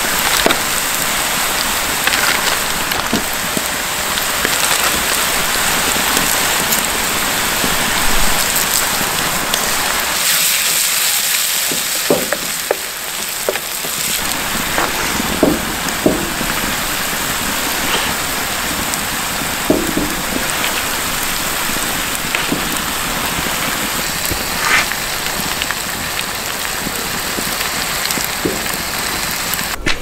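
Vegetables sizzling in a metal roasting pan over a wood fire: a steady hiss, with a few soft knocks in the middle as pieces of mackerel are set into the pan.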